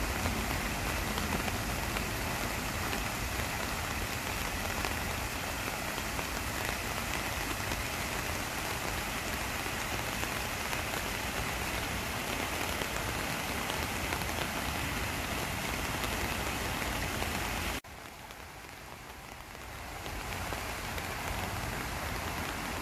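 Steady rain falling, mixed with the splashing of a small stream cascading over stones. About 18 seconds in, the sound drops suddenly to a quieter rain hiss, then grows louder again over the last few seconds.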